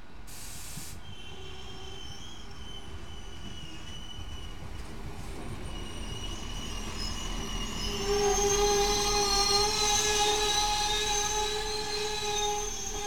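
SA135 diesel railcar (Stadler Regio-Shuttle RS1) rolling along the platform as it slows to a stop, with a high, steady squeal of several pitches that swells loudly about eight seconds in. A brief hiss comes near the start.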